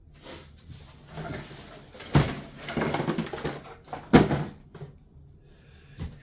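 Cardboard shipping box being opened and handled: rustling and scraping of cardboard and packing, with two sharp knocks about two and four seconds in.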